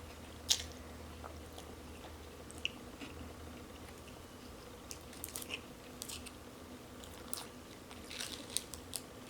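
Close-up mouth sounds of a person eating: scattered bites and chewing with small crunchy clicks, busiest in the second half.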